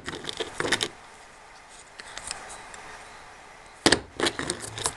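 Metal parts and hand tools clinking and knocking during bench disassembly of a car air-conditioning compressor: scattered light clicks, with one sharper knock about four seconds in followed by a quick run of clinks.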